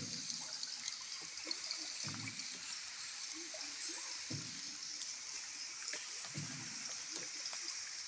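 Wooden paddle strokes in the water of the underground river, a dull splash about every two seconds, over a steady hiss of trickling and dripping water inside the cave.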